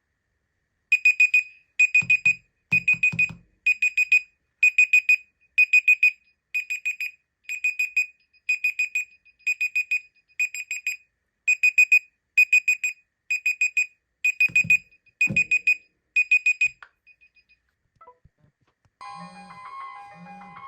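Smartphone alarm clock going off: a high electronic beep in quick groups of short beeps, repeating a little faster than once a second, then stopping about 17 s in, with a short low buzz twice under it. Near the end a marimba-like ringtone starts.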